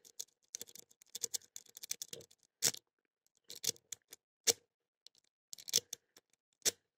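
Lock pick and tension wrench working the pin tumblers of an old 55mm Bane padlock, giving irregular small metallic clicks and scratches, with a few sharper clicks about 2.5, 4.5, 6 and 6.5 seconds in.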